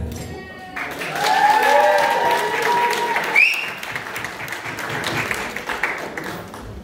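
Audience applauding and cheering after the dance music stops, starting about a second in, with whooping voices and a short, high rising cry near the middle; the applause thins out toward the end.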